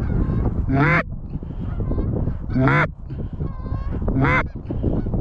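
Canada goose honking: three loud honks about 1.7 s apart, each a low note breaking up into a high one, with fainter, higher honks in between.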